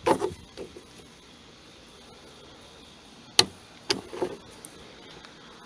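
Small plastic trim caps being pried off a truck cab's interior panel: a few clicks and scrapes, with the sharpest snap a little past halfway and another about half a second after it.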